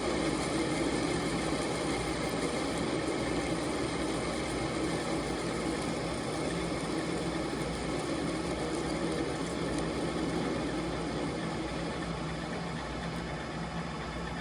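Metal lathe running steadily with a turning pass being cut on a piece of stock by an insert tool. The sound eases slightly in level near the end.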